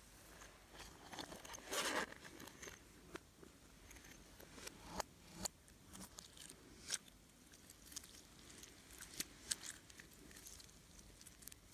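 Slime being handled, with irregular sharp clicks and crackles; the loudest crackling comes about two seconds in, then single clicks every second or so.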